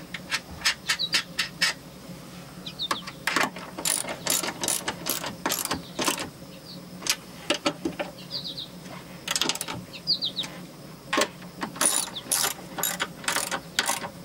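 Ratchet wrench with a socket on an extension clicking in quick, irregular runs as it turns and tightens a tow mirror's mounting nut.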